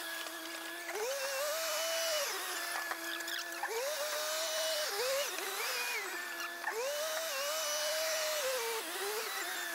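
A small motor whining, its pitch rising and falling between a lower and a higher steady note every second or two.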